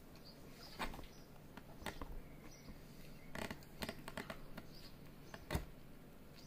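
Biting into and chewing a crisp pizza crust close to the microphone: a few scattered small crunches, a cluster of them about three and a half seconds in, and a sharper one about five and a half seconds in.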